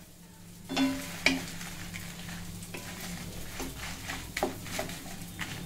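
Wooden spatula scraping through dried red chillies being roasted in a steel kadai, with the chillies rustling and lightly sizzling. The strokes are irregular and start about a second in, the first two the loudest.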